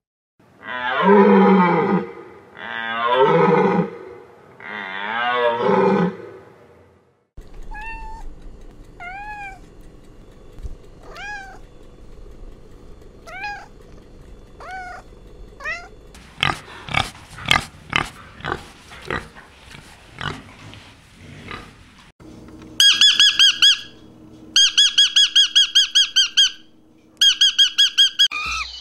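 Animal calls in sequence: an African elephant gives three loud calls, then a tabby cat mews in about eight short, high calls roughly a second apart. A run of sharp clicks follows, and a rosy-faced lovebird chirps in four bursts of rapid high chirps.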